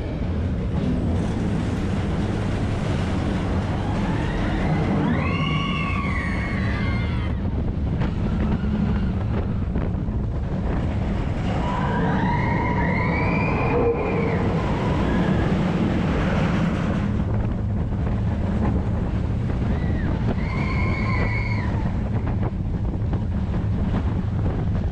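Expedition Everest roller coaster train running at speed, with a steady rumble of wheels on track and wind buffeting the microphone. Riders scream three times: about five seconds in, around twelve seconds, and near twenty seconds.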